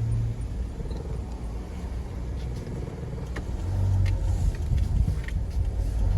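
Car driving on a city street: a steady low engine and road rumble that grows louder a little past halfway through, with a few faint clicks.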